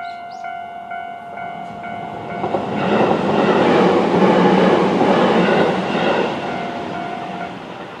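Level crossing's electronic warning bells ringing in a fast repeating tone while a Tobu 20400 series electric train passes, the train loudest from about three to six seconds in. The bells stop shortly before the end.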